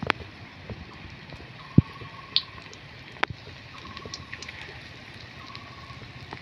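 Battered fish pakoras deep-frying in hot oil in a karahi: a steady sizzle with scattered pops and crackles, one louder pop a little under two seconds in.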